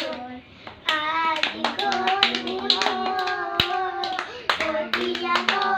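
Young children singing together while clapping their hands in a clapping game, with sharp claps between held sung notes. The first second is quieter before the singing and clapping pick up.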